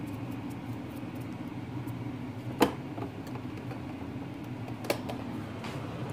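Steady low hum of a small motor or fan, with one sharp knock about two and a half seconds in and a lighter click near five seconds.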